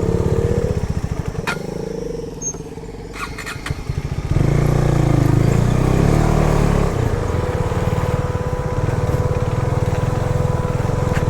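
Motorcycle engine pulling the bike over a muddy dirt track. It eases off for a couple of seconds, then about four seconds in the throttle opens again, with revs rising and falling before settling into a steady run.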